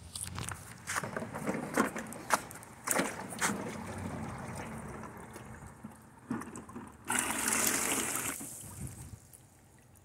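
Aiper Seagull Plus robotic pool cleaner being lowered into a pool by its handle: plastic knocks and clicks from handling it in the first few seconds, then water sloshing and gurgling around the unit, with a loud rush of water about seven seconds in that lasts over a second.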